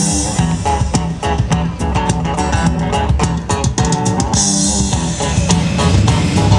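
Background music, a song with guitar and a drum kit keeping a steady beat.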